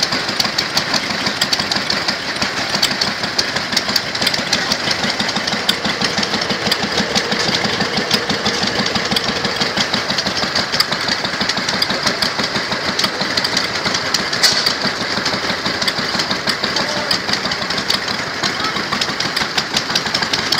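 Small vintage single-cylinder stationary engines, among them a hopper-cooled Lister, running steadily with a fast, even knocking beat. There is one sharper click about two-thirds of the way in.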